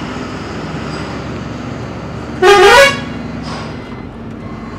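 Inside a truck cab, the engine runs steadily underneath a single short, loud horn blast about two and a half seconds in. The horn's pitch rises briefly at its start.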